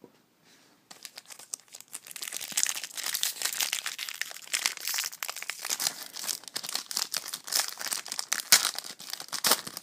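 Foil wrapper of a Bowman Platinum baseball card pack being torn open and crinkled in the hands: a dense, crackling rustle that starts about a second in and goes on.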